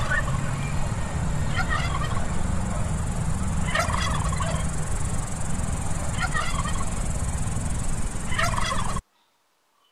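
Domestic tom turkeys gobbling, five gobbles about two seconds apart, over a steady low rumble. The sound cuts off abruptly near the end.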